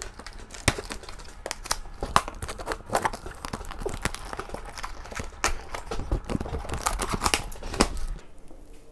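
Packing tape being slit and ripped off a large cardboard box, and the cardboard flaps being pulled open: irregular crackling, tearing and scraping with sharp clicks, dying down near the end.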